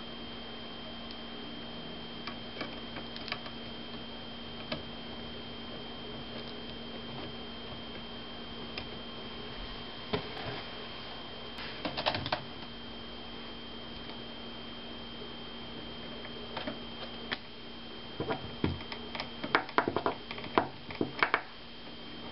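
Light plastic and metal clicks and taps from handling and fitting a laptop's replacement LCD panel and its brackets, sparse at first and coming in a quick run of sharp clicks near the end, over a steady faint hum.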